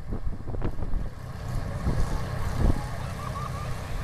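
Antique farm tractor engines running in an uneven low rumble, with wind buffeting the microphone on the moving tractor.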